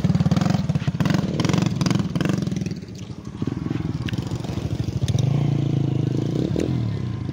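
A vehicle's engine running on the move, with a fast, even pulsing that eases off about three seconds in and picks up again into a steadier drone around five seconds in.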